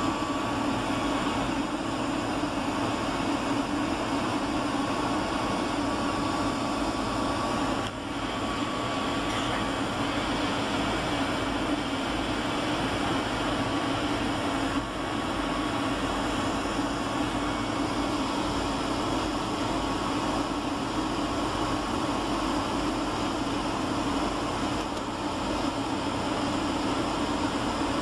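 Steady cabin noise inside a Boeing 757-300 airliner on its descent to land: the rush of engine and airflow, with a low hum and a faint high whine above it.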